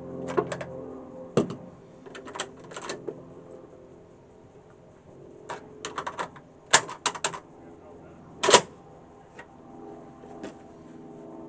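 Sharp metallic clicks and clacks of the CETME C 308 rifle being handled at the bench, coming in small clusters, with the loudest clack a little after two-thirds of the way through.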